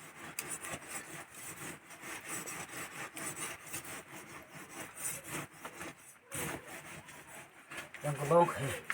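A dao blade being sharpened: steady rough scraping strokes of steel against an abrasive, broken off briefly about six seconds in.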